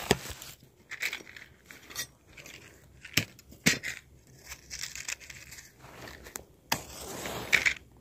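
Sticks and kindling being handled at a small campfire that won't catch: scattered sharp snaps and cracks with bouts of rustling, the longest rustle near the end.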